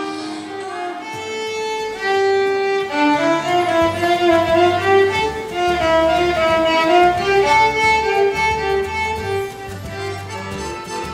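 Violin playing a melody of held and moving notes, with lower accompanying notes underneath from about three seconds in.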